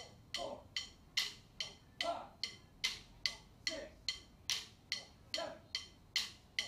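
A drum line keeping time with steady, sharp clicks, about two and a half a second, during a quiet passage.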